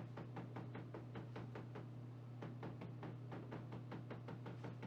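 Rapid, even hammer taps on the truck bed's sheet metal, about five a second, as a dent is worked out, over a steady low hum.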